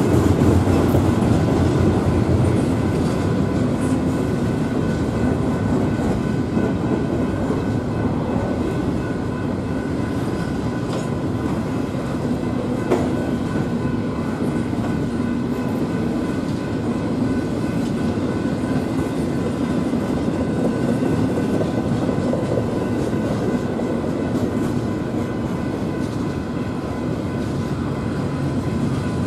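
Double-stack intermodal freight train's loaded well cars rolling past: a steady rumble of steel wheels on the rails, with an isolated sharp click about thirteen seconds in.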